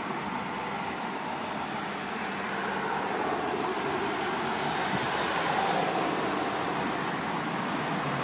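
Road traffic: a steady wash of car tyre and engine noise from a multi-lane city street. It grows louder around the middle as a couple of cars drive past.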